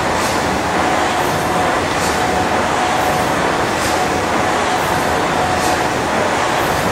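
J & E Wood triple-expansion four-cylinder mill steam engine of 1907 running steadily: a continuous mechanical clatter and rumble, with a short hiss of steam about every two seconds.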